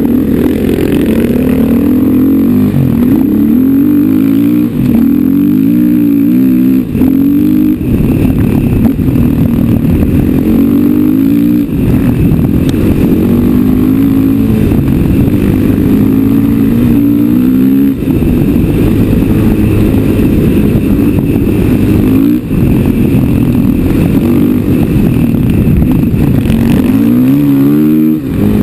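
KTM 500 EXC single-cylinder four-stroke dirt bike engine ridden under throttle, heard from the rider's helmet: its pitch climbs and drops back over and over as the rider accelerates, shifts and rolls off, with short lifts of the throttle a few times.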